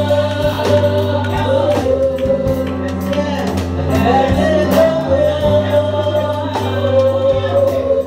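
Gospel song: voices singing a wavering melody over sustained chords and bass from a Yamaha electronic keyboard, with a steady beat.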